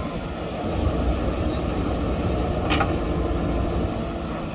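JCB 3DX backhoe loader's diesel engine running steadily under load as the backhoe arm swings back from the truck and lowers the bucket to the soil pile. A short sharp clank sounds a little under three seconds in.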